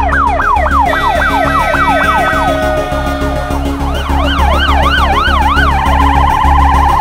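Emergency-vehicle sirens cycling through their tones: quick falling yelps about three times a second, at times two sirens overlapping, then a faster rise-and-fall sweep, then a steady warbling tone from about six seconds in. Background music with a steady low beat runs underneath.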